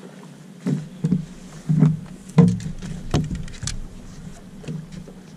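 Irregular knocks and thumps aboard a bass boat, about seven in a few seconds, the loudest about two and a half seconds in, over a steady low hum.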